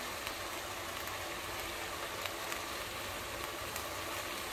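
Steady low hiss of green beans simmering in oil and a little water in a stainless steel pot, with a few faint ticks.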